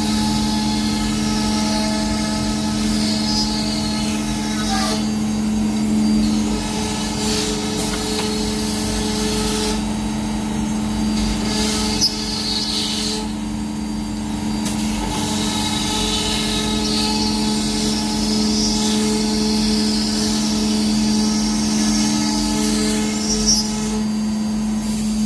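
BCAMCNC BCM2030D CNC router running steadily with a constant whine, its bit routing a lattice pattern through a fibreboard sheet. A high hiss from the cutting rises and falls as the bit moves, with a couple of short lulls.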